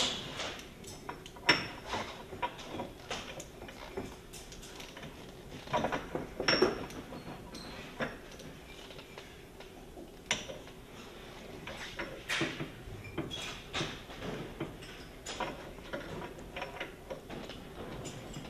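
Scattered metallic clicks and knocks from hand work on a ring-and-pinion gear housing, as the carrier bearing adjuster is turned to add backlash between ring gear and pinion.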